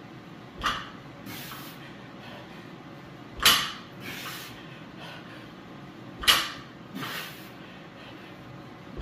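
Loaded barbell clanking down onto the power rack's pins at the bottom of each rack-pull rep, three times about three seconds apart. Each clank is followed about half a second later by a short breathy hiss.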